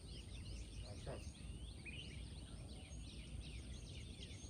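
Many small birds chirping and twittering in quick overlapping calls, faint, over a low rumble of background noise and a steady thin high-pitched whine.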